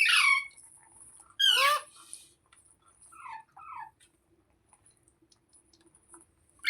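Pet rose-ringed parakeet (Indian ringneck) screeching: two harsh calls in the first two seconds, then two softer falling chirps about three seconds in.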